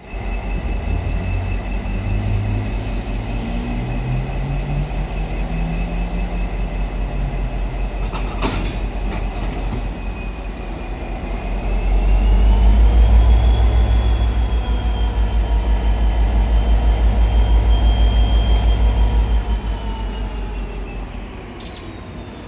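Diesel train running: a heavy low engine throb with a high whine that rises and then falls in pitch. The throb grows louder about halfway through, holds, then eases off near the end. A sharp click sounds once, a little before the middle.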